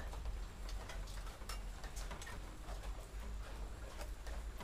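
Scissors cutting a thin aluminium baking pan along a marked line: a run of light, irregular clicks and snips.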